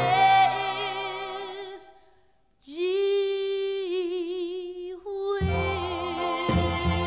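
1961 soul ballad: the band and voice fade to a brief silence about two seconds in. A female voice then holds one long unaccompanied note with vibrato, and the band comes back in near the end.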